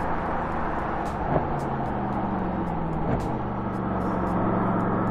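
2021 Porsche Panamera 4 E-Hybrid's 2.9-litre twin-turbo V6 running at a steady pitch while the car cruises, over a broad rush of tyre and road noise. There is a short knock about a second and a half in, and a fainter one near three seconds.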